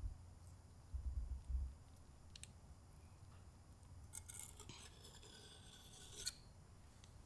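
A wooden spoon and a metal knife scraping soft butter into a ceramic butter keeper and levelling it across the rim, a faint scraping from about four seconds in until just past six. Earlier come a few soft low knocks as the dish and spoon are handled.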